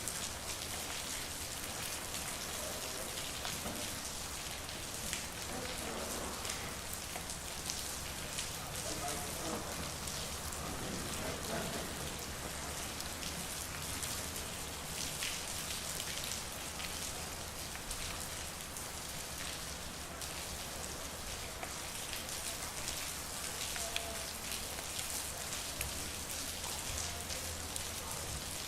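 Steady rain falling on a street, with individual drops ticking on hard surfaces.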